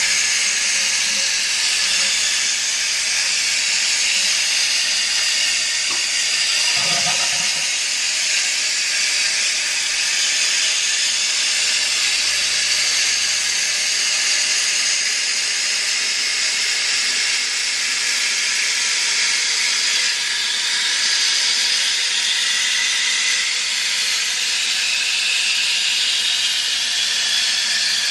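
Fluidmaster 400A fill valve hissing steadily as a 1991 Kohler Highline toilet tank refills after a flush.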